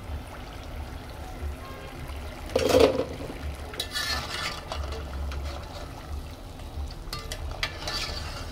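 Cassava fritters sizzling and bubbling in deep oil in a metal pot, with a metal slotted skimmer scraping and knocking against the pot. The loudest knock comes about three seconds in.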